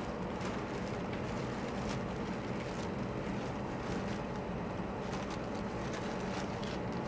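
A steady low hum, with faint, scattered rustles and scratches from kittens moving over cardboard and tissue paper.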